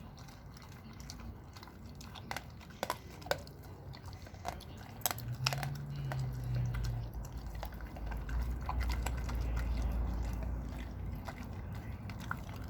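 An American bulldog chewing raw meat and bone: wet chewing broken by scattered sharp cracks and clicks, over a low rumble that swells in the middle.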